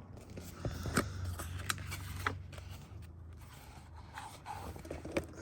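Small objects handled close to the microphone: scraping and rustling with a few sharp clicks, over a steady low hum.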